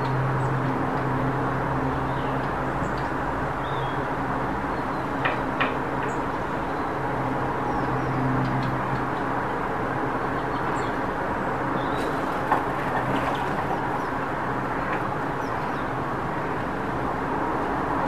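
Steady road traffic rumble with a low engine hum that comes and goes, and a few short, high bird chirps over it.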